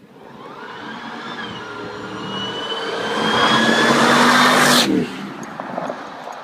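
Supercharged 5.4 L V8 of a 1999 Ford SVT F-150 Lightning with a 2.3 L Kenne Bell supercharger, accelerating hard. The pitch climbs steadily with a high rising whine on top, and it grows louder. About five seconds in, the revs drop sharply, leaving a quieter engine with a few pops.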